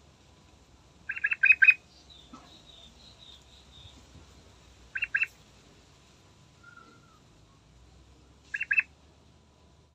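Yellow-vented bulbul (trucukan) calling in short bursts of clear notes: a run of four about a second in, then a pair in the middle and another pair near the end. Fainter high chirps from another bird come in between.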